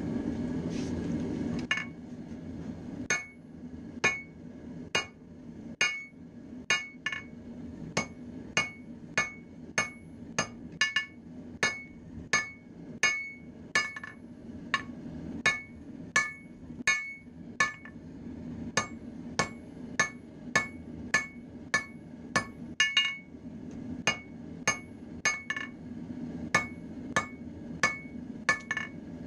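Hammer striking a red-hot railroad spike on an anvil, about one and a half blows a second, each blow ringing. A steady low roar runs underneath, loudest for the first two seconds before the hammering starts.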